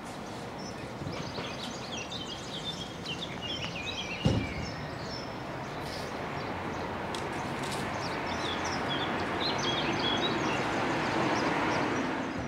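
Outdoor street ambience: small birds chirping and twittering over a steady background of traffic noise. There is a single low thump about four seconds in, and the traffic noise grows louder toward the end.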